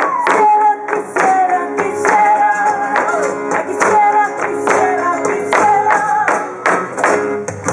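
Live flamenco music: acoustic guitars strummed in a sharp, accented rhythm, with strikes about twice a second, under a wavering melody line.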